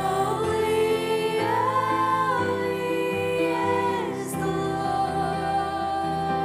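Slow, gentle live worship music with long held notes that shift chord every second or so.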